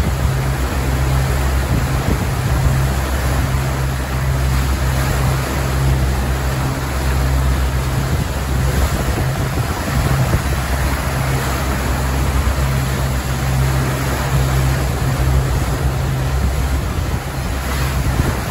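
Wind buffeting the microphone over the rushing, churning wake of a 42-foot catamaran under way in a rough, building sea, with a steady low rumble underneath.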